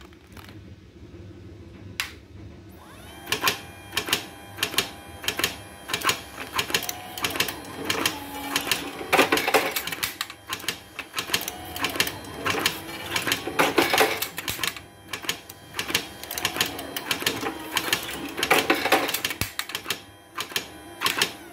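Home-built automatic cigarette-making machine with a revolver cylinder running as it fills filter tubes with moist kretek tobacco. It clicks and clatters rhythmically, about two clicks a second, starting about three seconds in, with a louder rattling burst about every four to five seconds.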